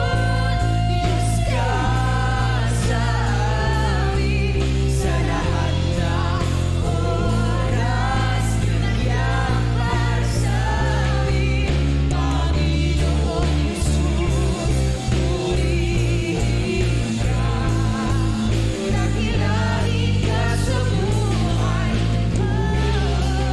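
Live worship band: a female lead singer sings in Tagalog with backing singers over drums and guitars, with cymbal crashes every couple of seconds.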